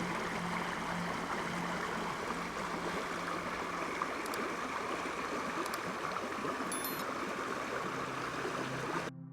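Creek water flowing steadily over rocks, an even rushing that stops abruptly just before the end.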